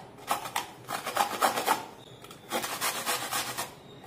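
Raw amla (Indian gooseberry) being grated on a flat metal hand grater: quick rasping strokes, about three or four a second, in two runs with a short pause just under two seconds in.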